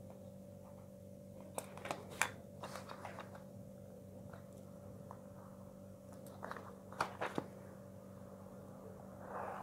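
Light clicks, taps and rustles of a plastic ruler and pen on paper as a rectangle is measured and drawn, in two clusters about two seconds and seven seconds in, over a faint steady hum.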